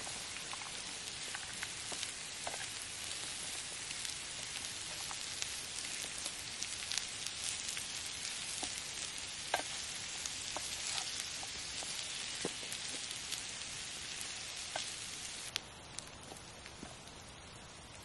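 Potatoes, onions and tomatoes frying in a pan over campfire embers: a steady sizzling hiss scattered with small crackles as they are stirred with a wooden spatula. About three quarters of the way through the sizzle drops much quieter.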